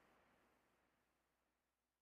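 Near silence: the background music has faded out completely.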